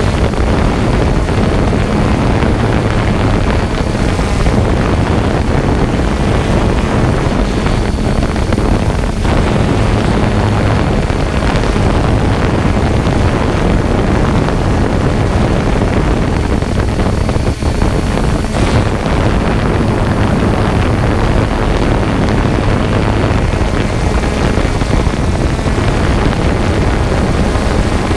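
Quadcopter drone's motors and propellers running steadily, heard up close from the GoPro on the drone itself, with a constant hum and wind rushing over the microphone.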